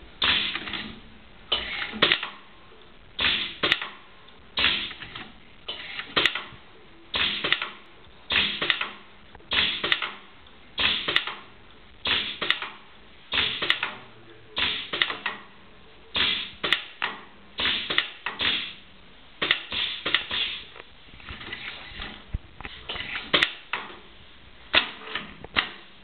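Industrial sewing machine made for stitching cloth polishing wheels, running in short clattering stitch runs about once every second and a half, stopping briefly between each.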